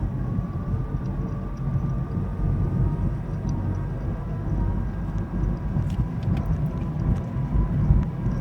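2013 Nissan Versa on the move: low road and engine rumble under a thin, high, near-steady whine that drops slightly in pitch partway through. The whine comes from the CVT transmission and is the sign of a CVT problem.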